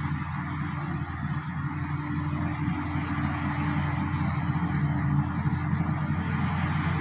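SD16 bulldozer's diesel engine running steadily with a constant low drone.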